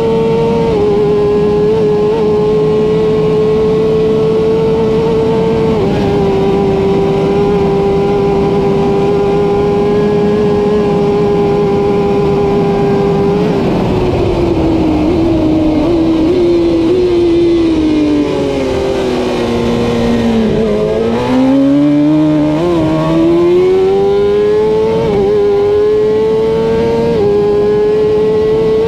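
Kawasaki ZX-10R superbike's inline-four engine held at high revs flat out, with steady wind rush. About halfway the revs fall smoothly for several seconds as the bike slows, then climb again with a couple of brief hitches back to full speed.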